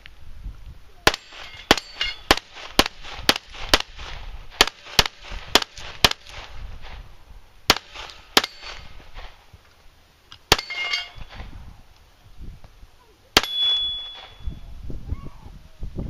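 A string of about fourteen pistol shots, roughly two a second for the first five seconds and then more spaced out. Several shots are followed by the ringing clang of steel targets being hit, the clearest a single held tone of about a second after a shot near the end.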